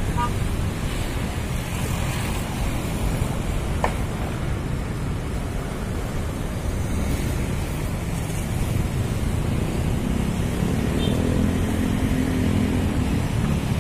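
Steady outdoor background noise: wind rumbling on the microphone over distant road traffic, with a faint engine hum coming in for a few seconds near the end.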